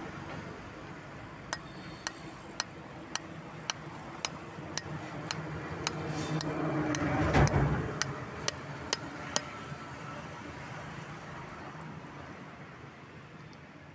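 A metal spanner tapping around the shell of a husked sprouted coconut to crack it open: sharp taps, about two a second, with a louder rough noise midway. The taps stop a little past halfway.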